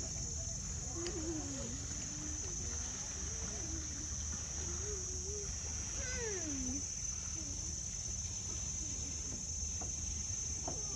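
Insects chirring in one steady, high-pitched drone, over a low steady hum. Faint wavering voices come and go underneath.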